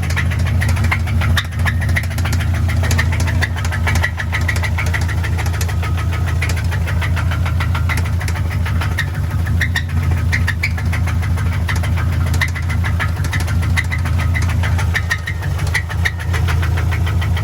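1997 Subaru Legacy's flat-four boxer engine idling steadily with a rapid knocking rattle, just after being coaxed into starting. The owner cannot place the grinding noise and hopes it is not the Subaru's notorious fourth-cylinder problem.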